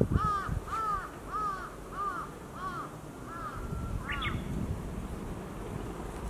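A bird calling in a quick series of about seven harsh, arched calls, roughly two a second, the last one rising in pitch about four seconds in, over a low background rumble.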